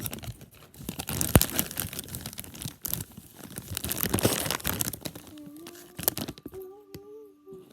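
A crisp packet crinkling and tearing as it is opened and handled, with some crunching. It settles after about five seconds into a faint pitched, voice-like hum.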